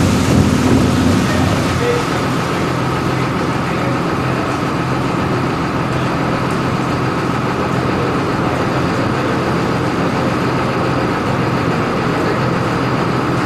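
Grain truck's heavy engine running steadily, with a steady high whine over its low tone, a little louder in the first second.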